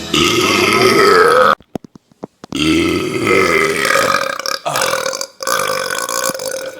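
Two loud human burps: the first lasts about a second and a half and cuts off suddenly; then, after a short gap with a few clicks, a long drawn-out belch goes on for about four seconds.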